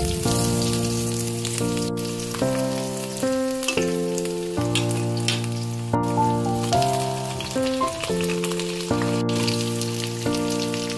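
Onion slices frying in hot oil in a metal wok, with a steady crackling sizzle, under background music of sustained chords that change about every second.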